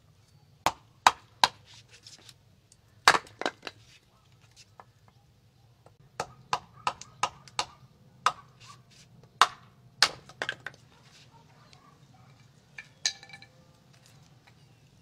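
Hatchet chopping firewood into kindling on a wooden chopping block: about eighteen sharp chops and knocks in groups, with one run of about three a second.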